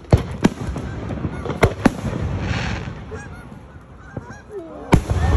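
Aerial fireworks shells bursting with sharp booms: two close together near the start, two more near the middle, and one near the end, with a brief hiss between them. Short repeated calls sound in the background throughout.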